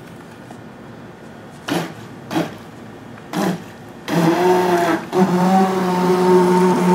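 Electric motor of a Majesty 800S RC boat. It gives three short throttle blips, then from about four seconds in runs steadily with an even whine, dipping briefly about a second later.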